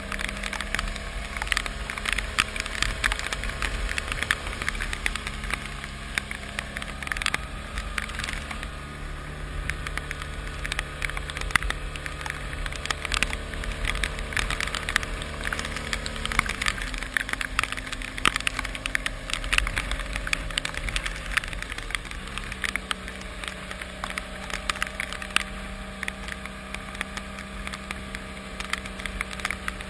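Rain crackling in dense, irregular clicks close to the microphone, over the steady hum of a vehicle engine running on the move. The engine note shifts about halfway through.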